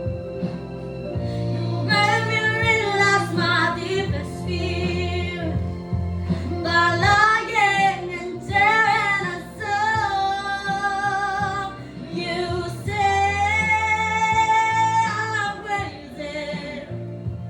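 A woman singing sustained, wavering phrases over instrumental backing music.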